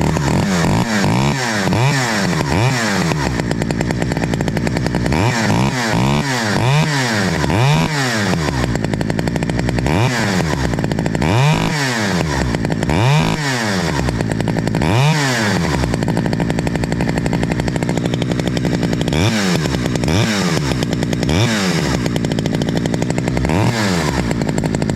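Two-stroke chainsaw running and being revved up and down over and over, with the throttle blipped several times a second at first. It shuts off abruptly right at the end.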